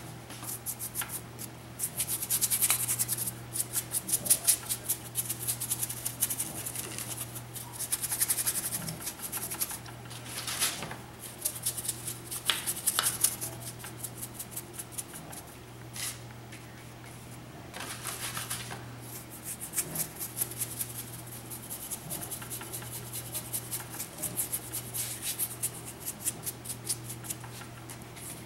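A bristle paintbrush scrubbed quickly back and forth over a rough concrete statue, and worked on cardboard, while applying paint: dense scratchy strokes in bursts of a few seconds with short pauses between them. A steady low hum runs underneath.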